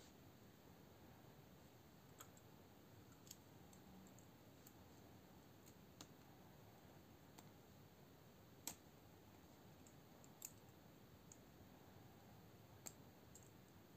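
Faint, scattered clicks of small metal folding-knife parts being handled in the fingers, about half a dozen spread out, the sharpest a little past the middle.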